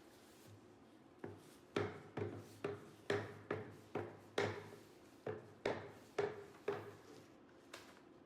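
Hammering in a woodshop: about a dozen sharp blows, roughly two a second, each with a short ring. They start about a second in and stop near the end.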